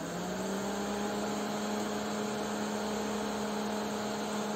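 Several DC cooling fans running together: a steady hum with a clear tone. Its pitch rises slightly in the first half second as the fans come up to full speed after being switched on.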